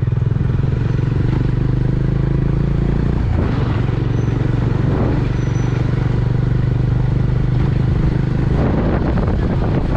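Motorcycle engine running steadily while riding, with the bike rattling over a rough, stony dirt road.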